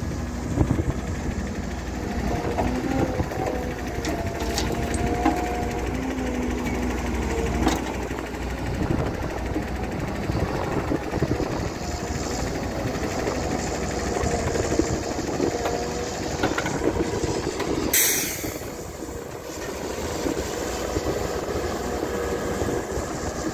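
Atlas TC3306 tracked excavator's Deutz diesel engine running under load while it digs sand, with a steady hydraulic whine that rises and falls in pitch as the arm and bucket move. A short burst of hiss comes about three quarters of the way through.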